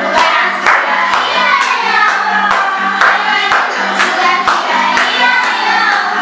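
Music: a song with voices singing over a steady beat of about two beats a second.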